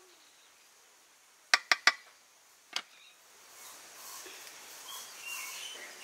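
A metal spoon knocks three times in quick succession against the rim of an aluminium pot of cooked rice, then once more about a second later. After that comes outdoor ambience with birds chirping.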